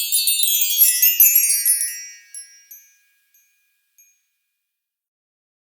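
Bright tinkling chimes in a cascade that steps downward in pitch for about two seconds, then die away, with a couple of faint pings after.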